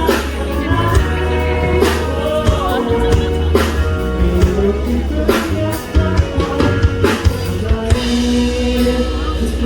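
Live band playing a Thai pop ballad through a PA system during a sound check: drums, heavy bass and guitar between sung lines, with some singing.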